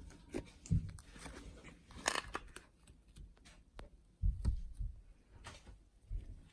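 Fluffy slime being squished and stretched by hand in a bowl: scattered small crackles and clicks, with a few dull thumps, the loudest about four seconds in.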